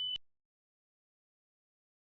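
Near silence: a steady high tone cuts off with a click just after the start, followed by complete digital silence.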